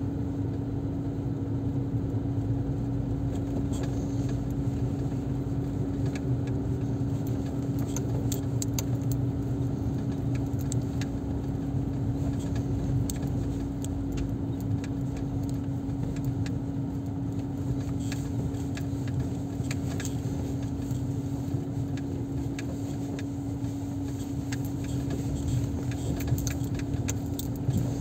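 Steady hum of a car's engine heard from inside the cabin as the car drives slowly, holding one constant tone, with faint scattered clicks and rattles over it.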